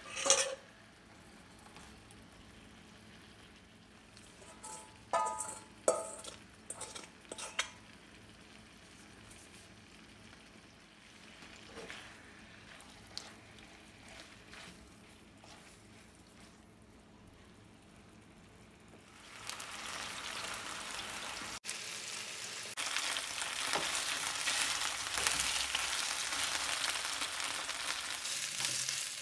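Chicken drumsticks frying in oil in a pan: a few short knocks as the pieces are turned with a wooden spatula, then steady sizzling starting about two-thirds of the way in.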